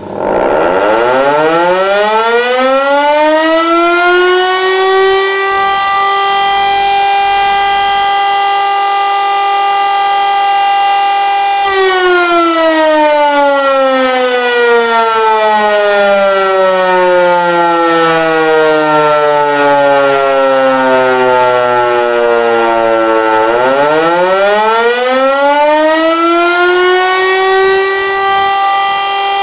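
Overhauled Hörmann E57 motor siren sounding the fire-alarm signal, a single-tone wail. It spins up to full pitch within about four seconds, holds steady for about eight, then winds down in a long falling glide of about twelve seconds. Near the end it spins up again to full pitch for the next blast. Despite the restoration, it doesn't sound particularly good.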